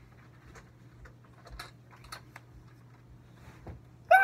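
Faint scattered clicks and rustles of a plastic Chewbacca mask being handled and pulled on, over a steady low hum. Right at the end a loud, warbling Chewbacca roar starts suddenly.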